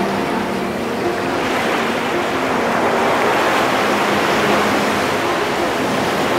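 Sea surf rushing in a steady wash that swells about halfway through, over soft background music.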